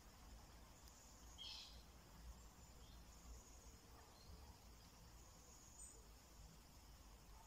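Near silence: faint outdoor ambience with a thin, steady high-pitched buzz and one short high chirp about a second and a half in.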